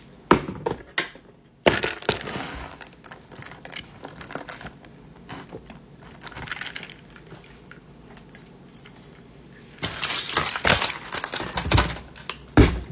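Handling sounds around a glass mason jar of iced coffee: scattered clinks and knocks of glass and ice. Near the end comes a louder stretch of rustling and rattling, ending in a thud.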